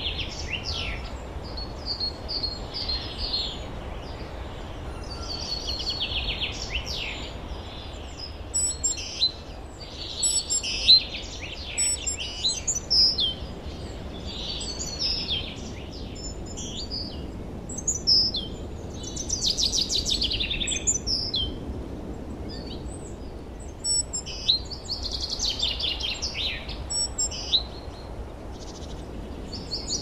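Forest songbirds singing: short trilling phrases, many sliding downward, follow one another with brief gaps, over a steady low background hiss.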